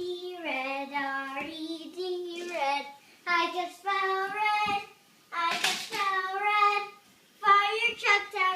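A young child singing in short phrases of held, wavering notes, with brief breaks between phrases.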